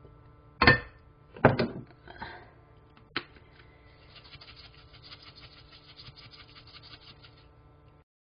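Two sharp knocks about a second apart near the start, then a faint crackling sizzle from stir-fried webfoot octopus and cabbage in a frying pan, with a steady low hum beneath.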